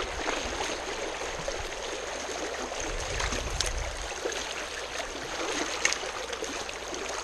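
Steady rush of a fast, high-running river flowing around a wading angler, with two short clicks about two seconds apart.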